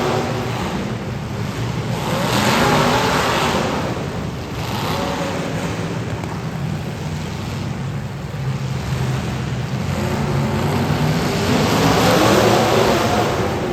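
Demolition derby cars' engines running and revving in the arena. The sound swells louder twice, about two seconds in and again near the end, as engines rev up.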